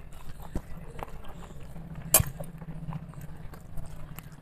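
Hand mixing rice on a stainless steel plate, with small clicks from fingers on the metal and one sharp clink about two seconds in.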